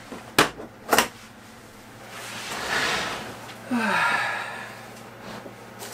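Two sharp plastic clicks as the latches of a DeWalt plastic tool case snap open, then a longer rustling as the lid is lifted, followed by a breathy exhale.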